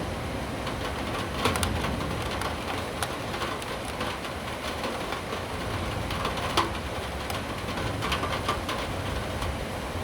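Steady rain, with a low rumble underneath and scattered sharp ticks, the loudest about six and a half seconds in.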